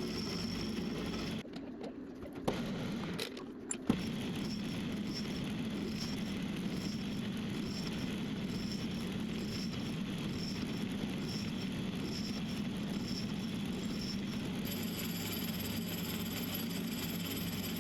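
Metal lathe running steadily, with a faint regular tick about every two-thirds of a second. About one and a half seconds in, the machine sound drops away for a couple of seconds, broken by two sharp clicks, then comes back.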